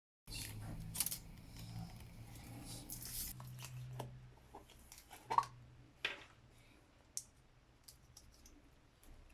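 Handling noise: rustling with a low hum for the first few seconds, then scattered light clicks and taps, the loudest about five seconds in.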